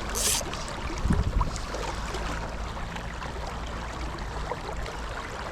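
Steady rush of river water with a low rumble over it, a brief rustle just after the start and a dull thump about a second in.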